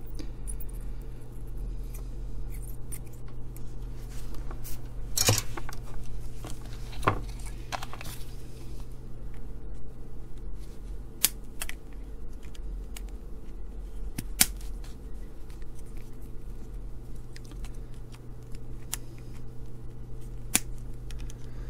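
Side cutters snipping component leads on a circuit board: several sharp, separate clicks spread through, over a steady low hum.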